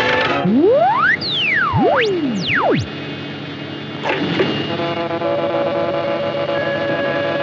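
Cartoon soundtrack for an electrical machine powering up. Several loud sweeping tones glide up and down across each other over the first three seconds. A sudden burst about four seconds in gives way to a steady chord of many held tones.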